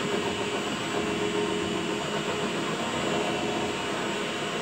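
WM210V bench lathe running steadily with a constant whine from its motor and gearing, during turning passes on a hardened steel stud.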